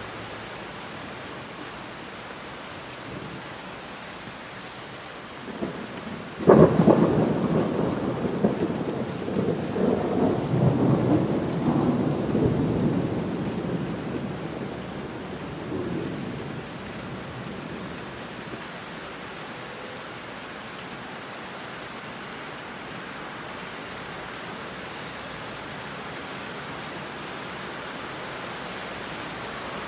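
Heavy rain falling steadily. About six seconds in, a sudden thunderclap breaks and rumbles on for about ten seconds, fading back to the rain alone.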